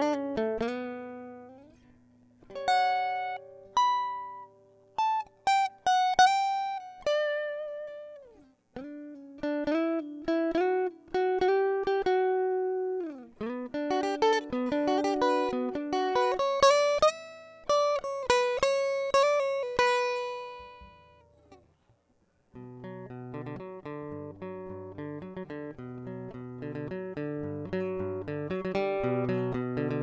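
Solo acoustic guitar music: single plucked melody notes ringing and dying away, some sliding down in pitch. The notes fade out about 22 seconds in, and after a short gap a new section of repeating picked chord patterns begins.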